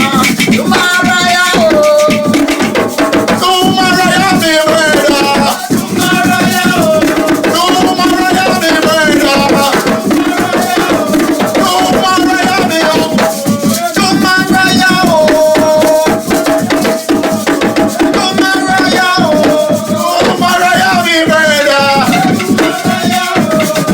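Hand drums and shaker rattles playing a steady, dense rhythm, with voices singing held, sliding notes over it.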